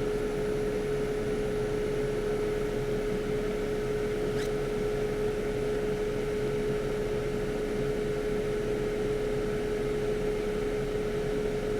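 Steady blowing whir with a constant hum tone from a hot-air rework station's blower, running on during microsoldering work.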